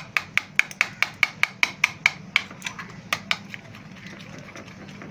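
Cream, condensed milk and milk powder being whipped by hand in a bowl, the utensil clicking against the bowl about five times a second; the strokes turn faint a little past three seconds in.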